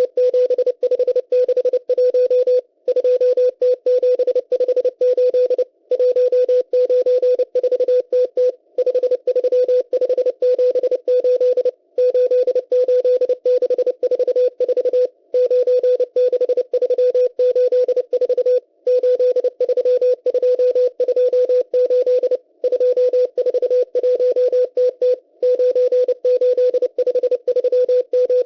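Morse code from the M12 numbers station received on shortwave: one steady beep tone keyed fast in number groups, with a brief pause about every three seconds, over light receiver hiss.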